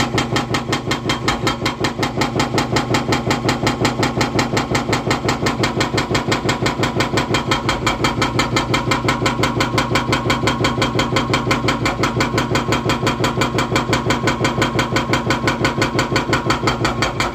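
Hydraulic breaker hammering concrete: a fast, steady rhythm of about five blows a second with a machine's engine running underneath.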